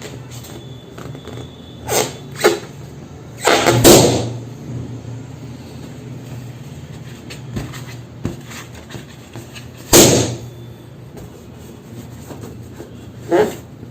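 Balloons bursting and being handled: a handful of short, loud noises, the loudest a longer one about three and a half seconds in and a sharp pop about ten seconds in, over a low steady hum.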